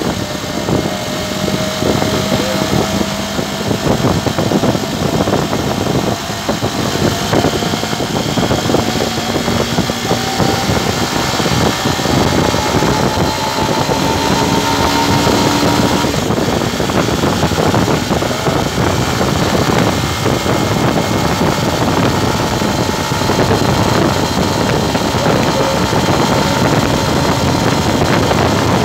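Motorcycle running at road speed, the engine note slowly rising through the first half as it gathers speed, under a dense rush of wind and road noise.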